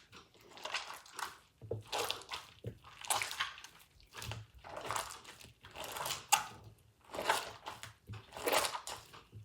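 Over-activated slime with water worked into it, squelching as it is kneaded and squeezed by hand, in repeated bursts about once a second.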